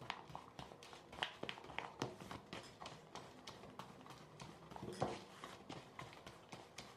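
Hands mixing granular shampoo-bar base in a plastic tub, with irregular light clicks and knocks of fingers and granules against the plastic and one louder knock about five seconds in.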